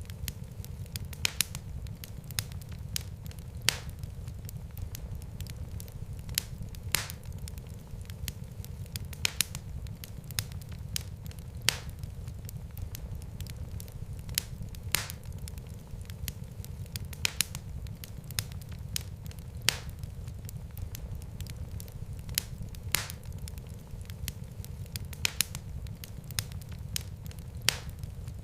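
Fireplace fire crackling: a steady low rumble of flames with sharp, separate pops every second or two.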